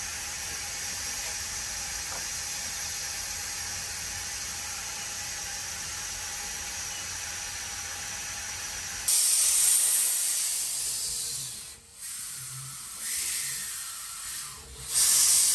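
Steam escaping with a steady hiss from a live-steam locomotive. About nine seconds in it gives way to louder gusts of hissing steam blowing out low at the front of the 1889 Baldwin 2 ft gauge engine, three or four separate blasts.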